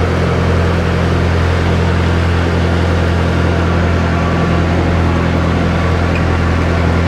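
Engine of a motorized outrigger canoe (bangka) running steadily at cruising speed: a loud, even low hum with a steady hiss over it.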